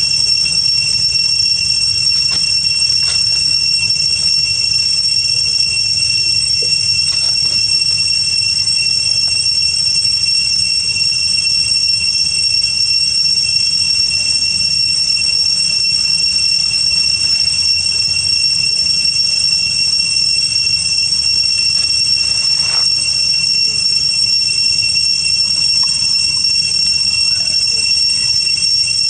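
Loud, steady high-pitched whine of a cicada chorus, unbroken, with a low rumble underneath.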